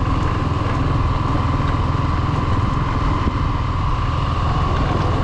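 Small-displacement motorcycle engine running steadily, with an even low pulsing and no change in pace.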